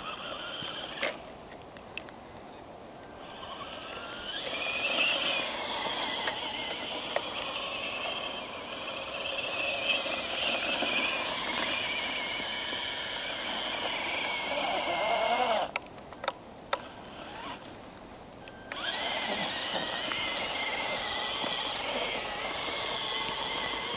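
Tamiya radio-controlled Humvee's electric motor and gearbox whining as it drives through snow, the pitch rising and falling with the throttle. The whine stops twice, for about two to three seconds each time, first near the start and again about two-thirds of the way through, then picks up again.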